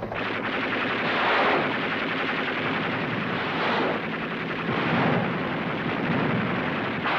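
Sustained rapid machine-gun fire from a Navy Seawolf Huey helicopter gunship, running on without a break and rising and falling in loudness about every second.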